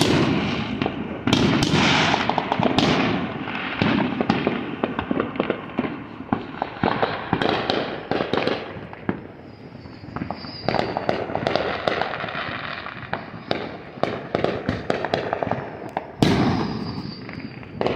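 Many fireworks going off all around: dense crackling and popping of firecrackers and aerial shells. Heavier bangs come right at the start, about a second in, and again near the end, and a faint high whistle is heard twice in the second half.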